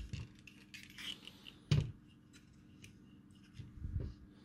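Handling noise as a small circuit board is set into the spring-loaded jaws of a plastic PCB holder: light clicks and scrapes, one sharper knock a little under two seconds in, and a dull bump near the end.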